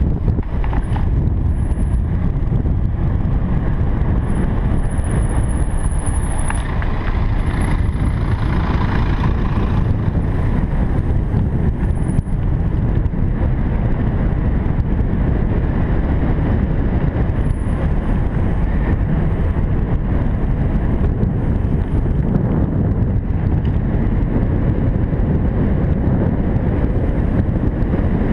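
Steady wind rush and road noise on the microphone of a rider moving along a road, loud and unbroken, heaviest in the low rumble.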